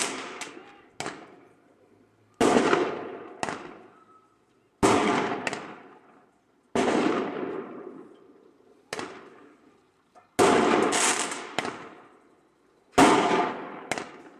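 A string of firecracker bangs, a loud one every two to three seconds, often followed by a smaller one. Each bang echoes for about a second before it dies away.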